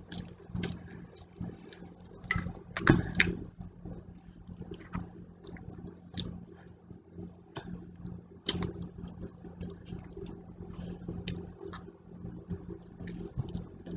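A person eating: a metal fork clicking and scraping against a plate, with chewing, heard as scattered sharp clicks over a steady low hum.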